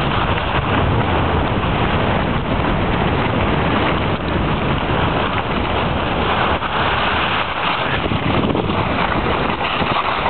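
Wind rushing over the microphone, mixed with a snowboard scraping and chattering over hard, icy snow during a fast run: a loud, steady rush of noise.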